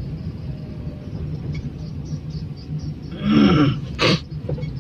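Steady low rumble of a car driving, heard from inside the cabin. A short vocal sound breaks in about three seconds in, and a brief sharp noise follows about a second later.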